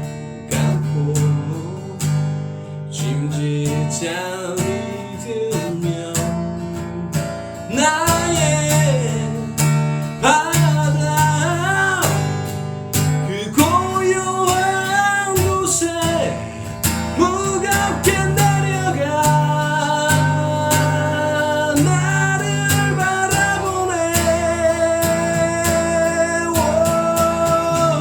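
Music: acoustic guitar strumming a song accompaniment, with a gliding lead melody joining about eight seconds in.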